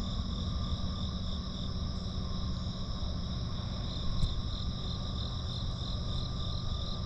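Chorus of crickets and other insects: steady high trilling, one voice pulsing rhythmically, over a low steady rumble.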